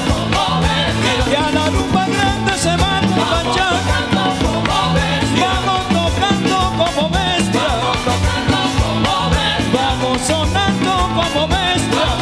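Live salsa band playing with a steady beat, a singer's voice over piano and percussion.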